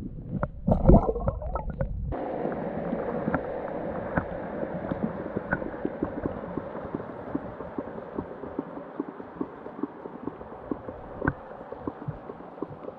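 Underwater sound picked up by a submerged GoPro. About the first two seconds are muffled rumble and thumps, loudest about a second in. After a sudden change, a steady hiss carries many small scattered clicks and ticks.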